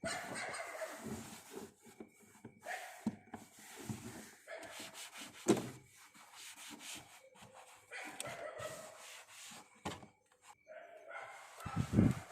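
A dog barking in irregular bursts, loudest near the end.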